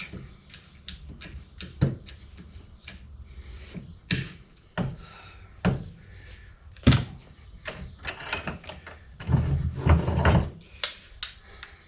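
Metal U-joint parts being worked into place by hand: scattered light clicks and knocks, a sharp knock about seven seconds in, and a cluster of heavier thuds near the end.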